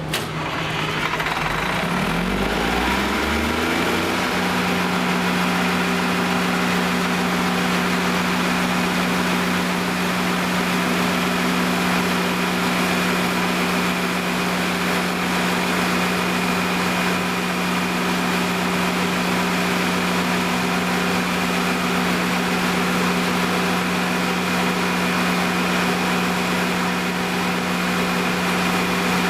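Kohler Detroit Diesel 350 kW diesel generator set just after starting, its engine rising in pitch over the first few seconds as it comes up to governed speed, then running at a steady speed.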